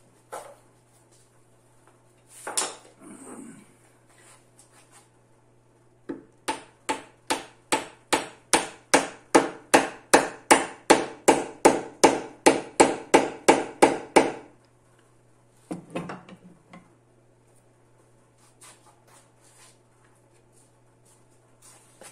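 A long wooden spindle being driven into a drilled hole in a wooden bench slab with steady hammer blows, about three a second, getting louder over some eight seconds. A few single wooden knocks before and after.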